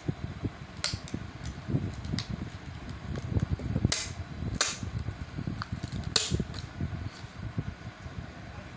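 A few sharp clicks over a steady low rumble. The loudest come about a second in, twice close together around four and four and a half seconds, and once just past six seconds.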